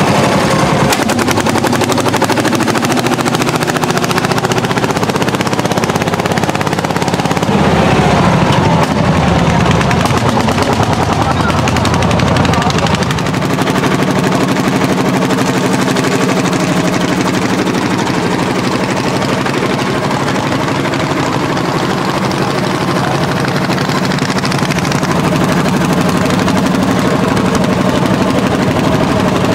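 Landini L55 hot-bulb single-cylinder two-stroke diesel engines working hard under ploughing load, with a loud, rapid, steady exhaust beat. The engine speed shifts a little and the level dips slightly about 13 seconds in.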